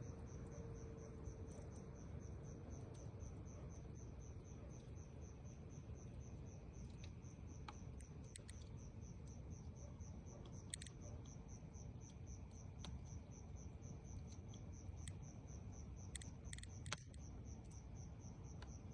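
Faint insects, most likely crickets, chirping in a steady high-pitched pulsing rhythm over a low background rumble, with a few faint clicks.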